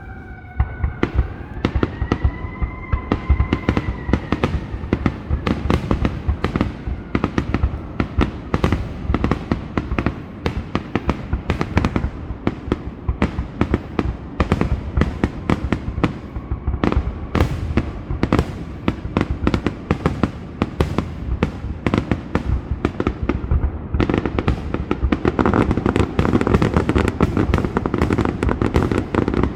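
Fireworks going off in a dense, continuous run of sharp bangs and crackles, thickening into heavier, near-continuous bursts for the last few seconds. A wavering high tone rises and falls over the first few seconds.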